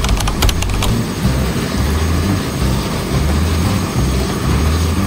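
Eurocopter AS350 helicopter running on the ground at idle, a steady low engine and rotor noise, with a few short clicks in the first second.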